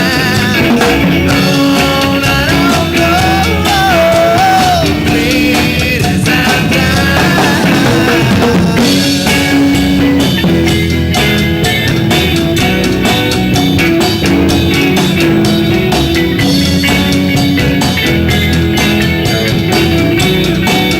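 Live rock band playing, with drum kit and electric guitar; a melodic line bends and wavers for a few seconds early on.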